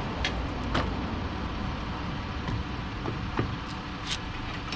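Van engine idling steadily, with a few sharp light clicks and taps.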